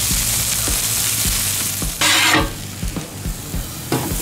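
Onions and mushrooms sizzling in butter on a Blackstone steel flat-top griddle, a steady hiss with a louder surge about two seconds in, while a metal spatula taps and turns them in a quick regular rhythm.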